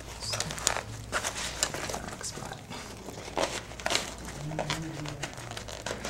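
Nylon vest fabric and webbing straps rustling and crinkling as they are handled, with small irregular clicks and knocks from the plastic-cased computer and its cables being pressed into place on the vest.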